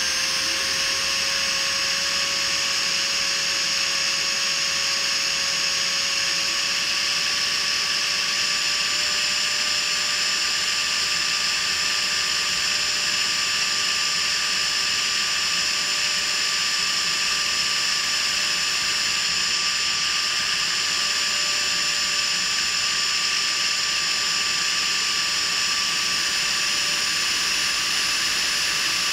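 Freewing 70 mm electric ducted fan with an inrunner motor, heard from a camera mounted on the model F-16 in flight: a steady high whine over a loud rush of air, its pitch edging up slightly several seconds in.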